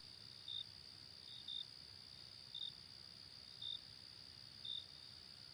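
Faint, short high-pitched chirps about once a second over a steady high whine.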